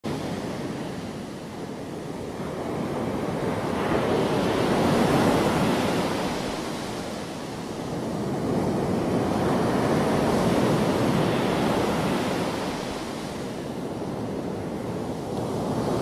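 Heavy sea surf breaking and washing onto a pebble shore, a steady rush that swells and fades, with the biggest surges about five and ten seconds in.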